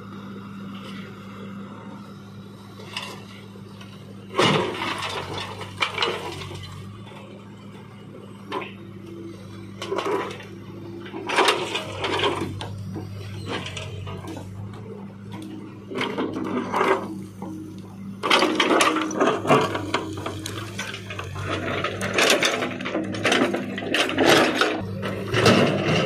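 Backhoe loader's diesel engine running steadily, with repeated clunks and scraping as its bucket shoves a large rock against loose stone and the steel trolley body. The knocks come in bunches and grow thick toward the end as the rock is worked into place.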